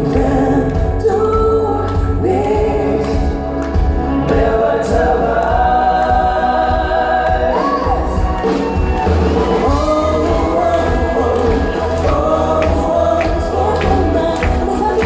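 Live pop-Schlager music: several voices singing together over a band with a steady beat.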